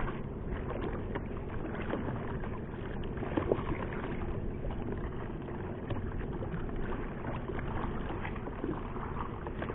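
Steady wash of water against a small paddled fishing boat's hull in a strengthening current, with a few faint knocks.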